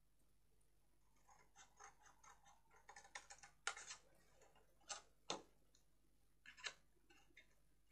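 Small craft scissors snipping notches into cardstock: a run of faint, quick snips and clicks, with a few sharper cuts near the middle and toward the end.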